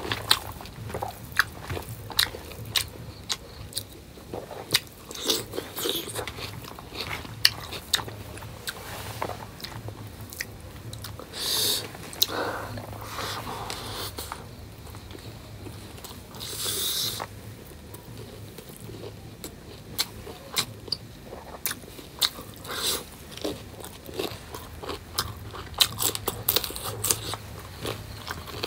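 Close-miked chewing and mouth clicks of a person eating rice and pork curry by hand, many short, irregular wet clicks. Twice, about 12 and 17 seconds in, a longer hissing sound stands out.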